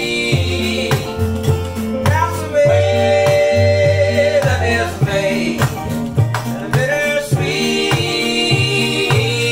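Live band music: upright bass playing a steady repeating line under acoustic and electric guitars, with voices singing along.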